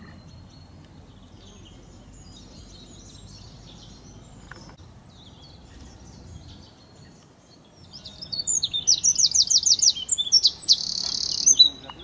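Eurasian wren singing loudly about eight seconds in: a quick run of sharp high notes, about six a second, then a fast rattling trill that cuts off near the end. Before it, only faint distant bird chirps over a low background hum.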